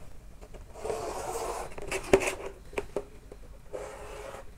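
Chalk scraping along a long ruler on a chalkboard as a straight line is drawn: a scratchy stroke about a second in, a sharp tap about two seconds in followed by a few lighter taps, then another scraping stroke near the end.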